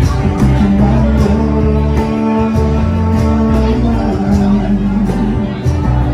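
Live band playing with strummed acoustic guitar, electric bass and a cajón keeping a steady beat.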